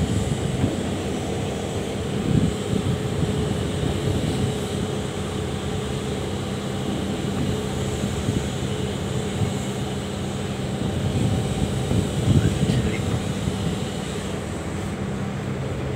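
Mobile boat hoist's engine running steadily as it lowers a fishing boat in its lifting slings, a constant low drone.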